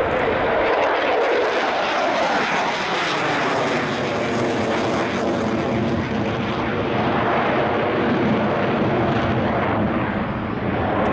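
Dassault Rafale C's twin Snecma M88 turbofan engines during a display flypast, loud and continuous. A tone in the noise falls in pitch over the first three seconds, then the sound settles into a steady rumble.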